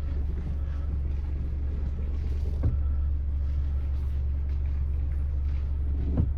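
Steady low rumble of a 2015 Mazda CX-5 driving, heard from inside the cabin with a window open, with a couple of faint knocks and no front-suspension squeak: the new stabilizer link has cured it.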